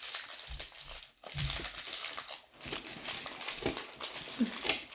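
Plastic snack wrapper being crinkled and handled: a run of crackling rustles with a couple of brief pauses.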